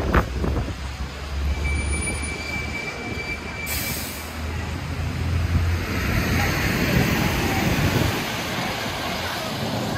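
Low rumble of a heavy vehicle going past on a city street, with a thin steady whine for a couple of seconds, then general traffic noise.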